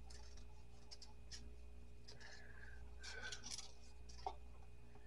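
Faint scraping strokes of a vegetable peeler on a potato, in two short runs about two and three seconds in, over a low steady hum.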